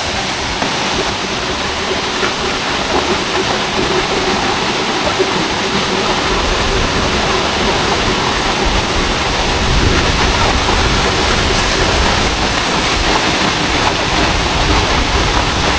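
Waterfall pouring into its plunge pool: a loud, steady rush of water, with a deeper rumble coming in about six seconds in.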